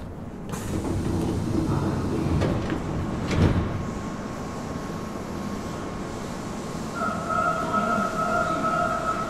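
Nagoya Municipal Subway 3000 series chopper-controlled train running, heard from inside the car: a rumble of wheels on rail that swells about half a second in, with a single loud clunk about three and a half seconds in. A steady whine starts about seven seconds in.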